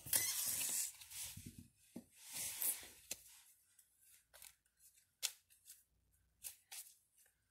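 Playing cards and a cloth being handled: rustling through the first second and again around two to three seconds in, then scattered small clicks and taps.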